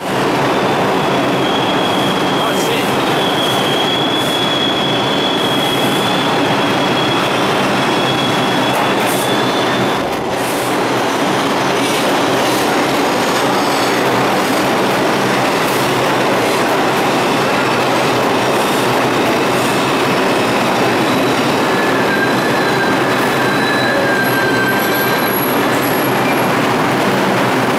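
Bombardier R142 subway train running into the station: a loud, steady rumble of steel wheels on rail. A high, steady squeal rings from about two to eight seconds in, and fainter squeals come back near the end.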